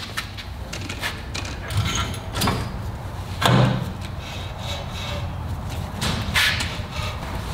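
Ford Super Duty rear wheel hub being slid onto the axle spindle: metal sliding and scraping with a few clunks, the loudest about three and a half seconds in.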